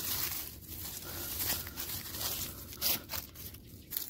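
Dry leaves, grass and twigs rustling and crackling as they are brushed and handled, in irregular short bursts.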